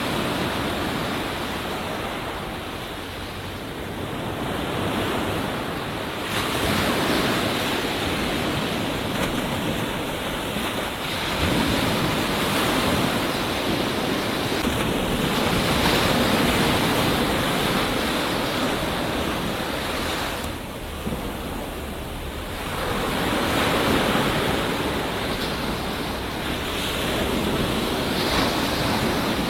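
Ocean surf washing onto a beach: a continuous rush of breaking white water that surges louder and eases back several times.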